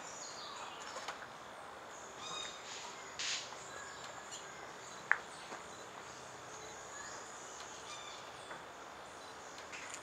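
Tropical forest background: a steady high-pitched insect buzz with scattered faint bird calls, and one sharp tap about five seconds in, the loudest sound.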